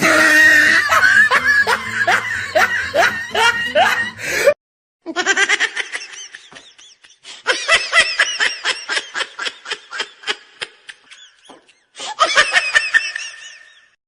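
Laughter sound effects cut one after another: several separate laughs, each a run of quick ha-ha pulses that fades out, with abrupt silent breaks between clips about four and a half and about twelve seconds in.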